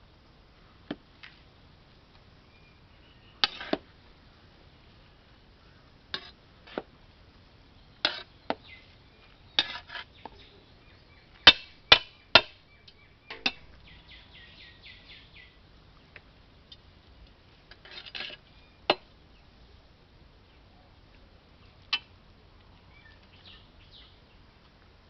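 A steel ladle knocking and scraping against the sides and rim of a large metal pot while rice biryani is stirred and turned over, giving irregular clinks, the loudest cluster about halfway through.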